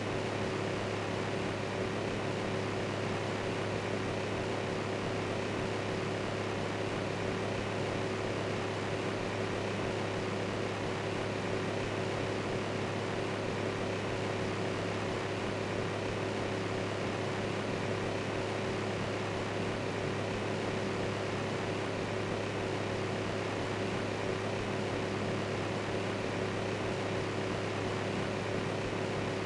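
Electric fan running steadily: an even rush of air with a constant low hum, unchanging throughout.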